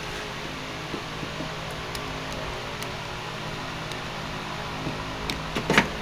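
Steady hum of a fan, with a few faint clicks and a short run of light knocks near the end as parts are handled.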